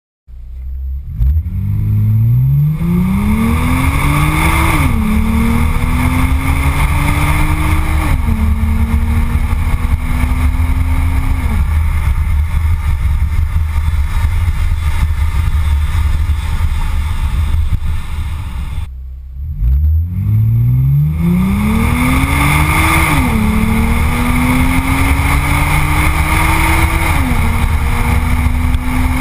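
Ford Fusion Sport's 3.5L Cyclone V6 through a Borla cat-back exhaust, pulling hard through the gears twice: each time the revs climb, drop sharply at an upshift, climb again and drop at a second upshift. Between the two pulls there is a stretch of steady wind and road noise with little engine sound, and heavy wind rumble on the microphone runs under it all.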